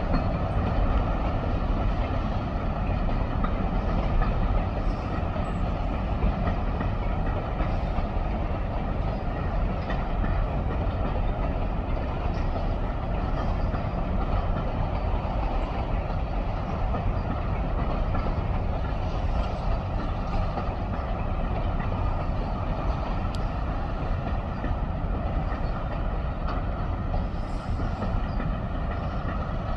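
A train of open-top coal cars rolling steadily past, its wheels giving a continuous, even rumble on the rails.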